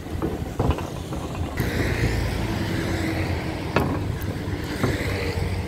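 Road traffic: a steady rumble of car engines and tyres that swells about a second and a half in, with two light ticks near the end.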